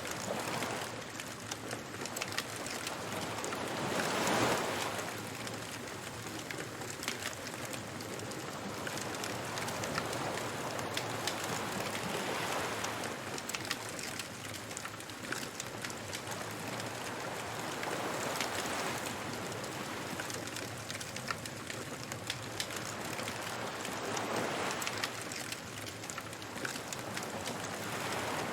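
Beach bonfire ambience: a fire crackling and popping with many small sharp snaps, over ocean waves that swell and wash in every several seconds.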